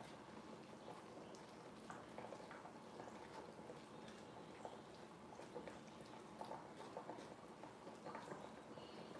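Faint irregular bubbling and crackling of ground beef and beef broth simmering in a cast iron skillet, with a wooden spatula stirring through it.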